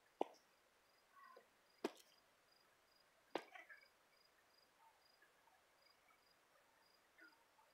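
A cricket chirping faintly, a high thin tone repeating at even spacing. Three sharp knocks, about a second and a half apart in the first half, are the loudest sounds.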